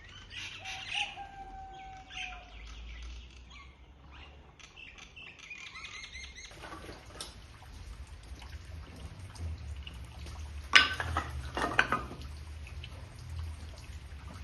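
Small birds chirping and calling, with a couple of short whistled notes early on. A little past the middle there are two sharp knocks, the loudest sounds.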